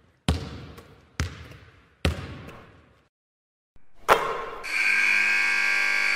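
Intro sound effects for a logo reveal: three sharp hits about a second apart, each ringing away. After a short gap comes a louder hit that opens into a held musical chord.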